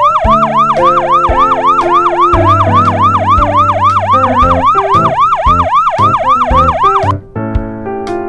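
A fast warbling siren sound effect, its pitch sweeping up and down about four times a second, over background music with a bass line. The siren cuts off suddenly about seven seconds in, leaving keyboard music.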